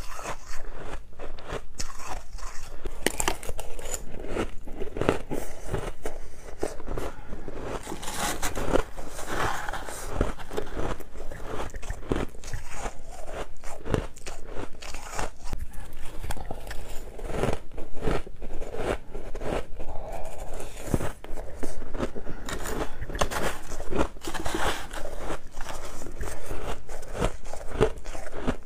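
A person biting and chewing mouthfuls of fluffy white ice, close up, with sharp crunches packed closely together throughout.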